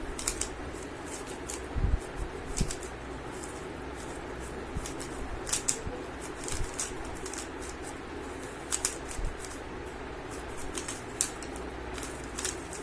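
Plastic 3x3 Rubik's cube being turned fast, its layers clicking and clattering in quick irregular bursts.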